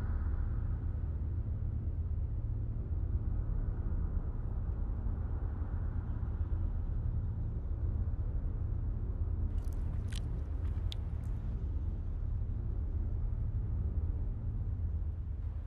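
A steady low rumble, with a short cluster of sharp clicks about ten seconds in.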